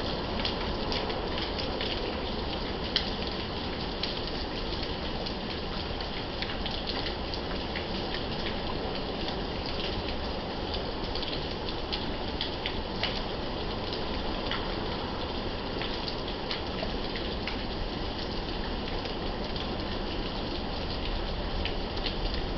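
Steady rain from a thunderstorm, a constant hiss with many individual drops striking close by as sharp clicks; one louder drop lands about three seconds in.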